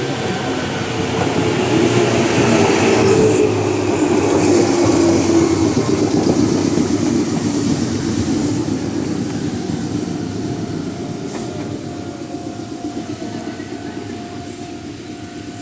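Meitetsu 6000 series electric train pulling into the station and braking to a stop, its traction motor whine falling in pitch as it slows. The running noise is loudest as the train passes close, then dies away once it has stopped.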